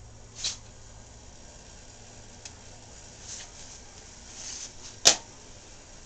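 A few brief rustles and one sharp click about five seconds in, over a steady low hiss.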